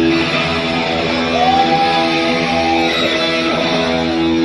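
Amplified electric guitar playing a heavy metal instrumental live, with held notes and one note sliding up about a second in and sustained.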